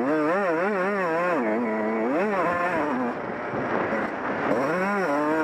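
Honda CR125's two-stroke single-cylinder engine revving up and down under throttle while riding a motocross track, its pitch swinging quickly several times in the first second and a half, then rising and falling again in the middle and near the end. Wind and track noise fill the gaps between revs.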